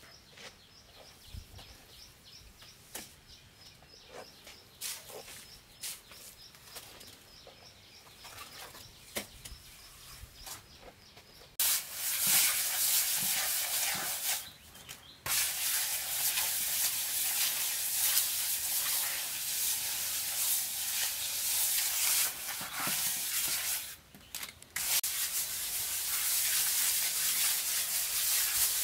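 A hand trowel scraping and smoothing wet cement render over a brick wall: a loud, continuous rasping scrape that begins about twelve seconds in and breaks off twice for about a second. Before it there are only faint scattered clicks and scrapes of a shovel in mortar.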